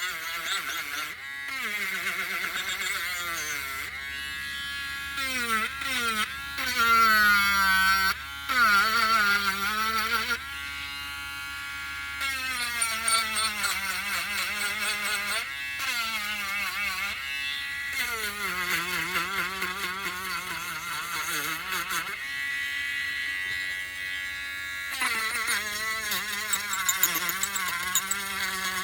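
Electric power sander running, its motor hum rising and falling in pitch as it is worked and the pressure changes, with brief drops between passes.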